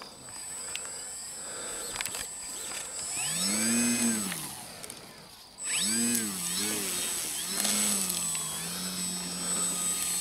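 Electric motor and propeller of a Multiplex Pilatus PC-6 Turbo Porter RC model being throttled up and down on the ground. The whine rises and falls several times, then holds at a steady low setting near the end as the plane starts to taxi.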